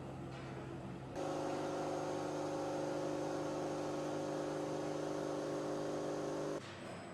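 Steady machine hum with several fixed tones over a hiss, cutting in suddenly about a second in and cutting off suddenly near the end.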